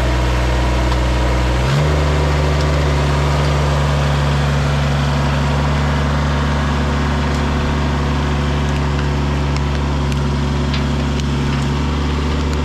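Kubota BX24 compact tractor's three-cylinder diesel engine running steadily under load while dragging a log on a chain. The engine speed steps up about two seconds in, then holds even.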